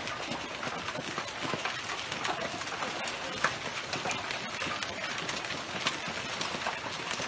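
Hail pelting a swimming pool and the paving around it: a dense, steady hiss of splashes and rattling, with many sharp individual hailstone impacts standing out at irregular moments.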